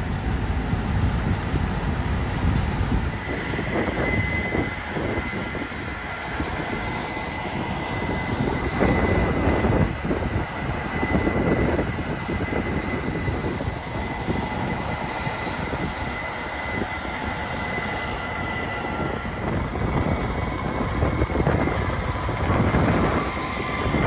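Case IH 8250 combine harvesters running while cutting wheat: a steady heavy machinery rumble with a high, even whine through most of it. Near the end a tractor pulling a grain cart passes close, and the rumble grows louder.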